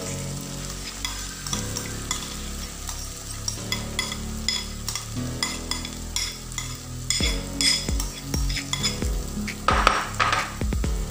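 Chopped red chilies and garlic sizzling in hot oil in a frying pan while a spoon stirs them, clicking and scraping against the pan. The stirring gets busier and louder in the last few seconds.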